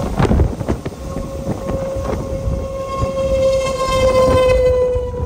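Outdoor tornado warning siren holding one steady wail, swelling to its loudest about three to four seconds in and sagging slightly in pitch near the end. Heavy wind buffeting the microphone rumbles underneath, with strong gusts at the start.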